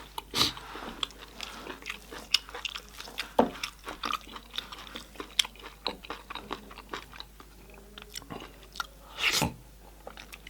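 Close-miked chewing of goat-head curry: irregular mouth clicks, smacks and bites, with a louder cluster about nine seconds in.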